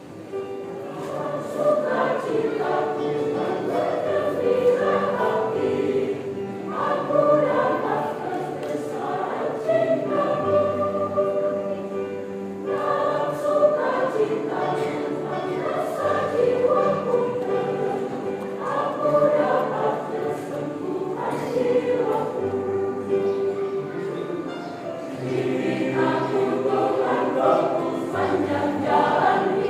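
Church choir singing in held, many-voiced phrases.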